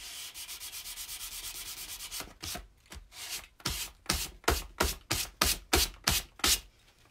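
Sanding block rubbed by hand along the edges of a book's cover boards, trimming the head and tail to height and bevelling them. Quick, light strokes for about two seconds, then slower, louder strokes, about four a second, that stop shortly before the end.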